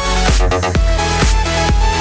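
Electronic dance music with a steady thumping beat and synth melody, briefly breaking about half a second in.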